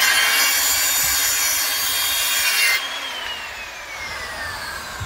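Skilsaw Model 77 worm-drive circular saw cutting through a wooden board. A little under three seconds in the cut ends, and the motor's whine falls steadily as the blade spins down.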